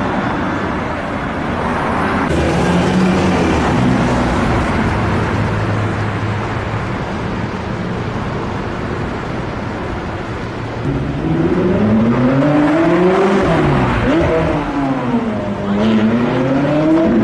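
Car engines running as high-performance cars drive along a city street. In the last several seconds an engine revs up and down repeatedly, its pitch rising and falling.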